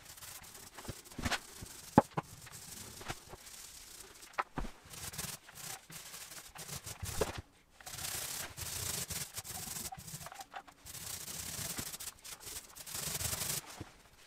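Small paint roller rolling satin wood paint onto a primed panel: a rubbing swish in stretches of a second or two, with scattered sharp clicks.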